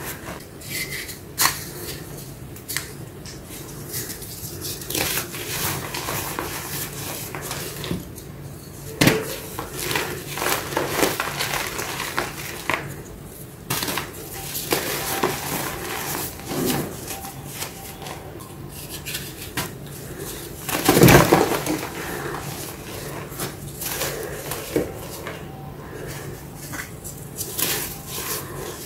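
Hands crushing and crumbling coloured reformed gym chalk blocks filled with black paste: dry, dusty crunching and crackling with scattered sharp snaps, and a louder burst of crunching about two-thirds of the way through.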